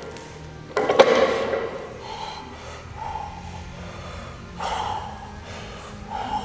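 A loaded barbell with bumper plates knocks sharply once, about a second in, and rings briefly. A lifter braced over it then takes forceful breaths while setting up a heavy deadlift.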